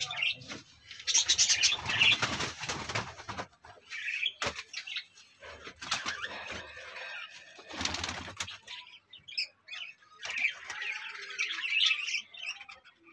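Doves flapping their wings: a long bout of wingbeats about a second in, then two short flutters around the middle. Birds chirping near the end.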